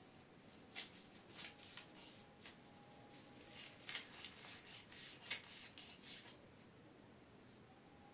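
Large tailor's shears snipping through blouse cloth along a paper pattern: a few separate snips at first, then a quicker run of snips from about four seconds in, stopping a couple of seconds before the end.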